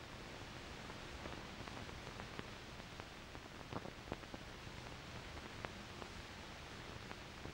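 Steady hiss with scattered faint clicks and crackles: the surface noise of an old 16 mm film soundtrack, with no music or voice on it.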